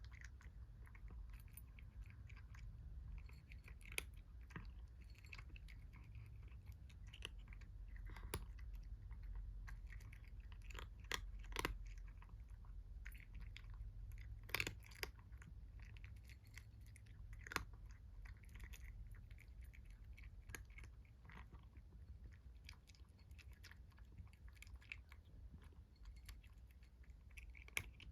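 Kitten eating, chewing with irregular sharp clicks of its teeth on the food, over a faint steady low hum.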